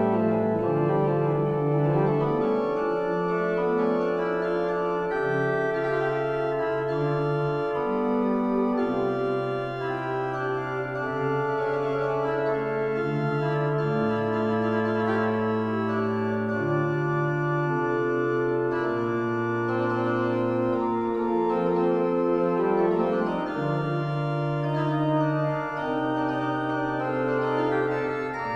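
Alexander Schuke pipe organ playing a French Baroque tierce en taille: a tenor-range solo line on a tierce registration over held accompanying chords and a pedal bass line, the notes sustained and changing every second or two.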